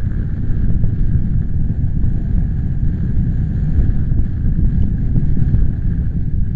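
Strong wind buffeting the microphone: a loud, unsteady low rumble.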